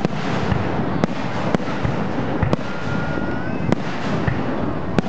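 Aerial fireworks shells bursting: about five sharp bangs, roughly a second apart, over a steady noisy rumble from the display.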